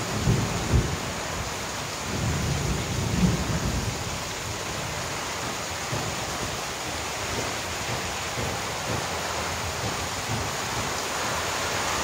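Heavy tropical downpour: a dense, steady hiss of rain pouring onto a street and roofs. Two bouts of low rumbling come in the first four seconds, the louder one about three seconds in.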